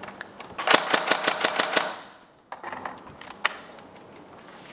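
Tokyo Marui Next Gen G36K airsoft electric rifle firing a rapid full-auto burst of about a second and a half, its recoil-shock mechanism clacking with each shot. It is followed by two single sharp clicks about a second apart.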